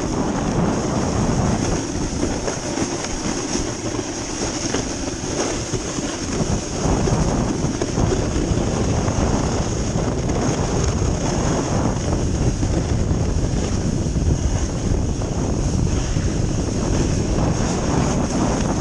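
A snowboard sliding and scraping over packed snow during a run, mixed with steady wind rushing over the microphone.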